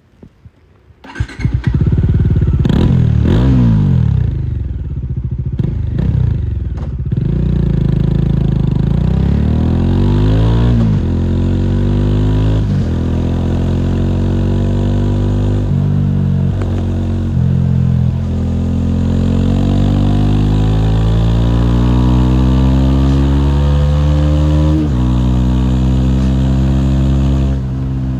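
Bajaj Dominar 400's single-cylinder engine starting about a second in, then blipped through several quick revs. It then pulls away, its pitch climbing steadily and dropping sharply at each gear change.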